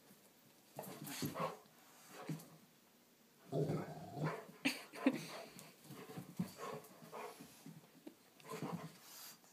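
Rottweiler making short, irregular vocal sounds while playing with a cockatoo, in bursts that come thickest about three to five seconds in.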